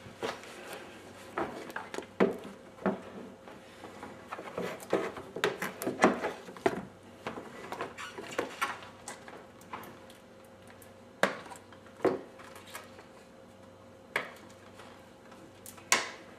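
Scattered clicks, taps and knocks of a rubber serpentine belt and hands working it around the engine's pulleys and cooling fan, busiest in the first half, then a few single sharp knocks.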